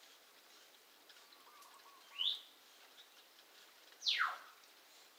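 Pet bird calling loudly: a short shrill call rising in pitch about two seconds in, then a louder call sweeping steeply down in pitch near the end.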